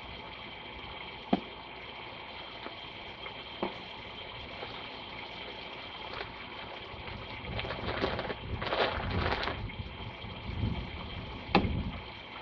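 Hands rummaging and scraping through loose potting soil while digging out potatoes, with a louder stretch of rustling about two-thirds of the way through and a couple of dull knocks near the end, over a steady background hum.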